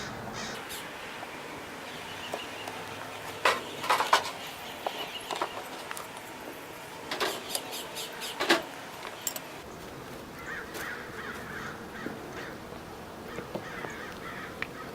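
A few sharp knocks of a wooden beehive frame struck against the hive to shake the bees off, coming in two groups.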